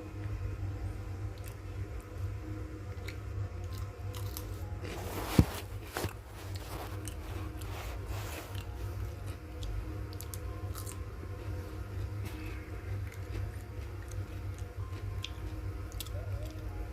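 A person eating biryani, with chewing and small clicks of food and plate, and a sharp knock about five seconds in. A steady low hum runs underneath.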